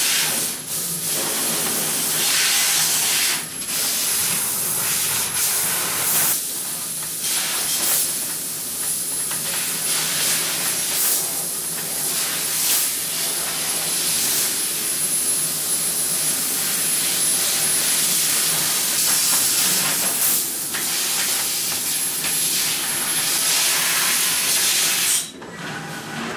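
Mazak Optiplex 3015 fiber laser cutting thin stainless steel sheet with nitrogen assist gas: a steady, loud hiss from the gas jet at the cutting head, dipping briefly several times between cuts and stopping about 25 seconds in.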